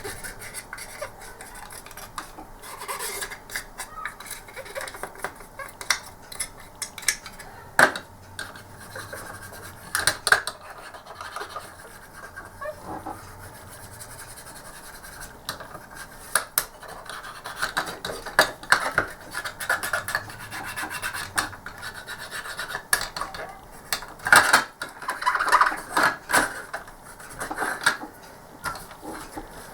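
Cotton bud wet with isopropyl alcohol scrubbing around the edges and seams of a plastic mouse casing: uneven scratchy rubbing, broken by occasional sharp clicks and taps of plastic.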